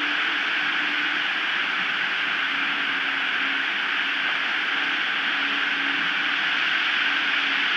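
Steady, even hiss of high wind on the osprey nest camera's microphone, with a faint low hum that comes and goes.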